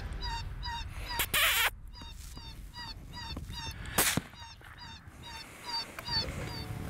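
Predator call playing a distress sound: a steady run of short, high squealing notes, about three a second. A loud rush comes about a second in, and a sharp crack, the loudest sound, at about four seconds.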